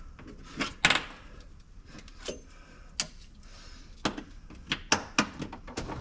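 Scattered sharp clicks and light knocks, about a dozen, irregularly spaced, with the loudest just under a second in and near five seconds in: the speedometer cable and its firewall grommet being worked loose by hand at a car's firewall.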